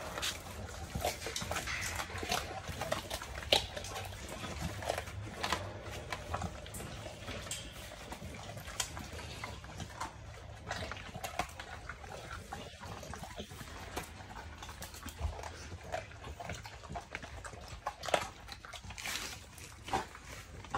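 Dogs chewing raw chicken leg quarters, bone and all, with wet, irregular crunches and clicks.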